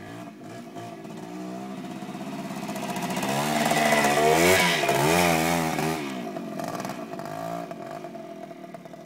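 Yamaha 175 dirt bike engine revving, its pitch rising and falling in quick swings, loudest about four to five seconds in as the bike pulls away close by, then fading as it rides off.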